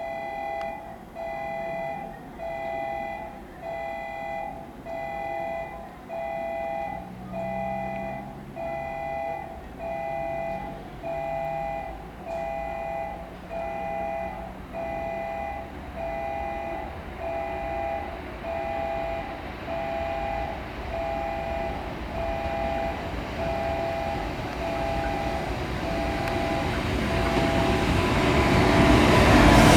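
Japanese railway level-crossing warning bell dinging, a two-tone electronic ding repeating just under once a second, warning of an approaching train. Under it the rumble of an approaching freight train hauled by an EF510 electric locomotive grows steadily louder toward the end.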